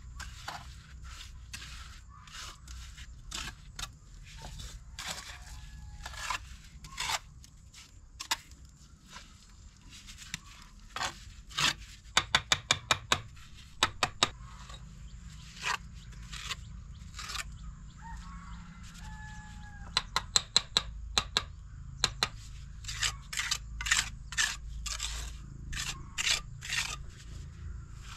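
Sharp taps and knocks with scraping between them. Twice, about 12 and 20 seconds in, comes a quick run of loud taps, about five a second.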